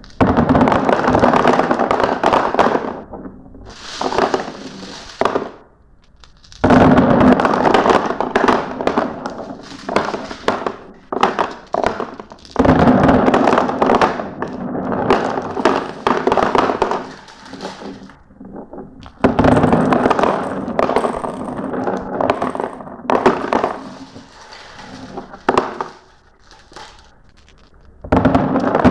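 Glass marbles clattering down a marble run in dense rattling runs of clicks. The sound comes in several waves a few seconds long, with short lulls between them.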